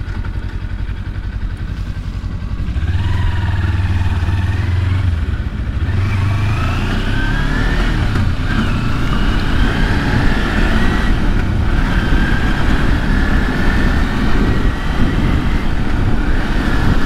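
Kawasaki Versys-X 300's parallel-twin engine running under way, picking up revs and rising in pitch about three seconds in and again through the middle. A steady low rush of wind noise sits underneath.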